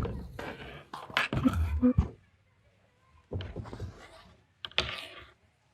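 Short bursts of clicking, knocking and scraping from hand work on bicycle parts, in four separate spells with near-silent gaps between them.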